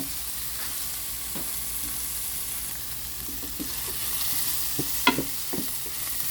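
Onions, ginger and garlic sizzling steadily in olive oil in a pan as they are sautéed, with a few short knocks about five seconds in.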